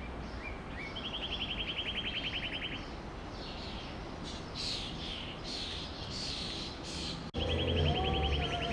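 Songbirds calling outdoors: a rapid, even, high trill lasting about two seconds, scattered high chirps, then the trill again near the end. After a sudden cut about seven seconds in, a low hum joins.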